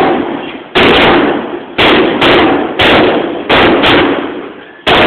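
A rapid series of heavy impacts, about eight blows in five seconds at uneven spacing, each hit ringing on briefly before the next.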